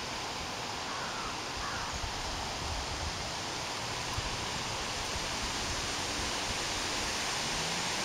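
Steady outdoor hiss with no distinct events, the even rush of open-air background noise.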